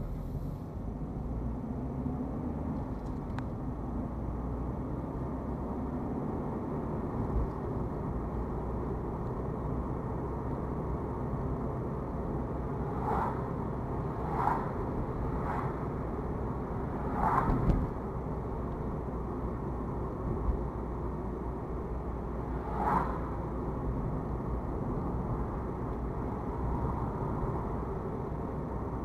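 Steady rumble of a car driving at about 30 mph, tyre and engine noise heard from inside the cabin. A handful of short knocks come through the middle stretch, one a little past halfway the loudest.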